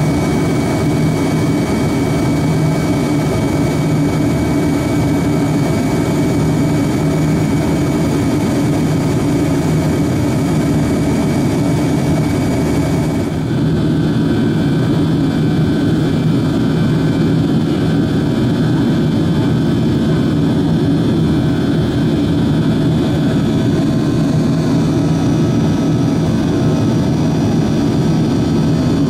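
Yakovlev Yak-42D's rear-mounted Lotarev D-36 turbofans heard from inside the cabin in flight: a steady drone with whining tones. About halfway through the hiss eases off and the whining tones change pitch.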